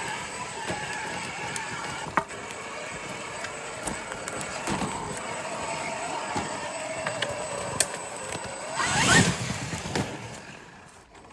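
Traxxas X-Maxx RC monster truck driving over rough ground: its brushless electric motor whines, rising and falling with the throttle, over scattered clicks and knocks from the chassis and tyres. About nine seconds in it surges loudly with a rising whine, then fades away.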